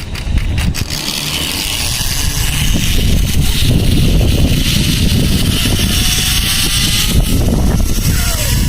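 Zipline ride: wind rumbling over the phone's microphone, with a hiss that builds a couple of seconds in. Through it runs a faint gliding whine from the trolley's pulleys running along the steel cable.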